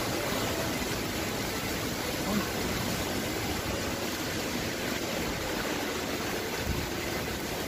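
Heavy typhoon rain and wind: a steady, even rush of noise.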